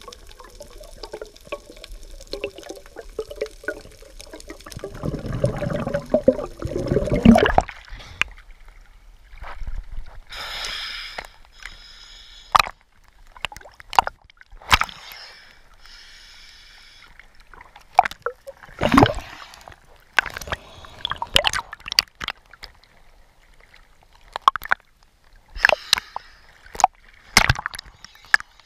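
Water sloshing and gurgling around an underwater camera, with a louder rush of water about five to seven seconds in, followed by scattered sharp clicks and knocks.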